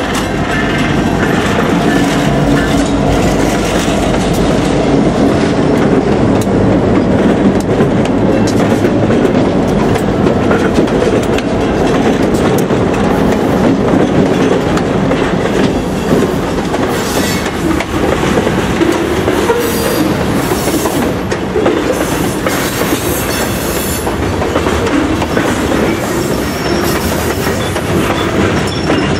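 Freight train passing close by over a road crossing. Diesel locomotives go by first with their engines running, then covered hopper cars roll past with steady clacking and rattling of wheels over the rails.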